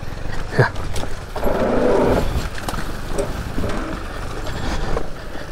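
Motorcycle engine running under way off-road, a steady low rumble with a louder, rougher stretch about a second and a half in.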